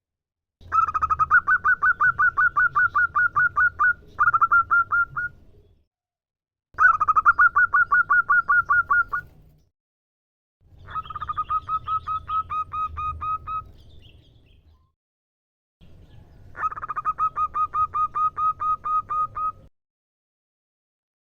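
Female zebra dove (perkutut) calling: four bursts of quick, evenly repeated notes, about six a second, each burst lasting about three to four seconds, with short pauses between.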